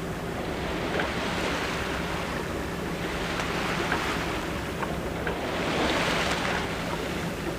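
Sea water rushing and splashing along a yacht's hull under way, with wind on the microphone. The hiss swells and eases in slow surges as the waves pass.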